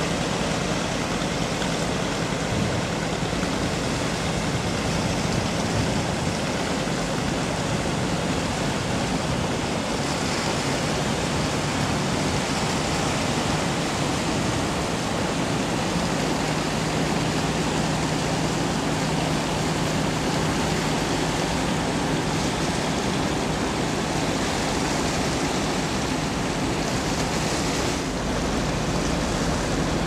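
Bow wave and wash of a passing container ship, a steady rush of churning water along the hull, with a low steady hum under it.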